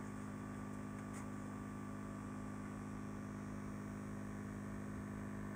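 Steady electrical hum from the nano reef aquarium's running equipment, a few low tones over a faint hiss.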